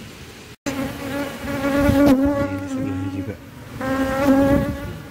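Asian honeybees (Apis cerana) buzzing loudly right at the microphone: one long buzz starting just under a second in, then a second, shorter one about four seconds in.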